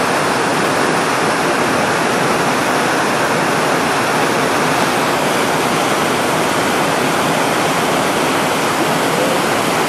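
Steady rush of whitewater tumbling through a rocky creek.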